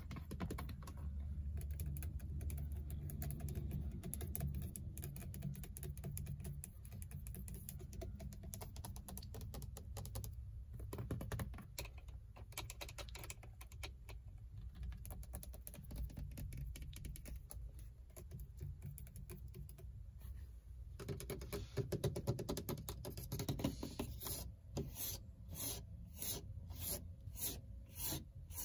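Long fingernails tapping and scratching quickly on the textured plastic airbag cover of a Ford Mustang's steering wheel. Near the end the taps turn slower and evenly spaced, about two a second, on the plastic dashboard top.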